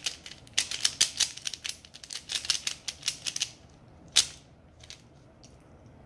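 Stickerless plastic 3x3 Rubik's cube being scrambled by hand, its layers turning with a fast run of clicks for about three and a half seconds, then a few single clicks.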